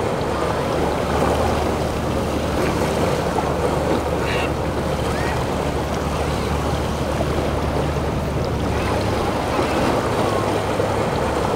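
Boat engines running steadily under the wash of waves and churning water in a rough inlet.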